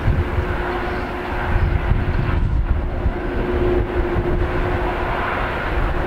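Airbus A321-211's CFM56 jet engines running as the airliner rolls on the runway: a steady hum over a rumbling, gusting noise. Strong wind is buffeting the microphone.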